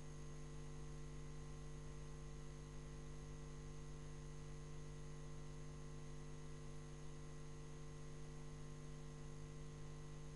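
Faint, steady electrical hum with hiss and no other sound: mains hum on the recording.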